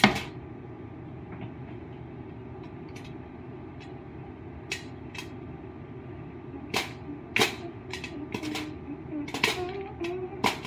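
Popcorn kernels starting to pop in coconut oil inside a foil-covered pot: scattered sharp pops, few at first, coming more often in the second half as the batch gets going. A louder knock opens it, over a steady low hum.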